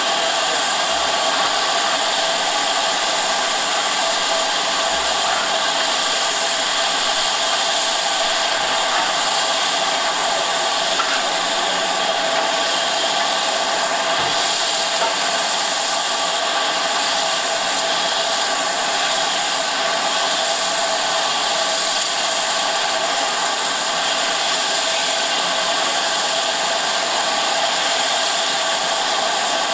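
Steam locomotive letting off steam in a loud, steady hiss that does not let up.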